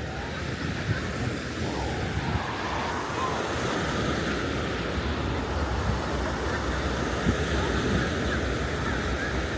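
Surf washing onto a beach in a steady wash of sound, with wind blowing across the microphone.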